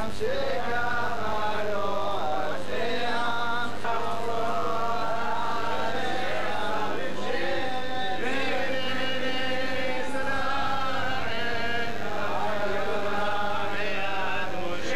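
Jewish liturgical chanting: voices singing Hebrew prayer in a continuous, melodic chant, over a steady low hum.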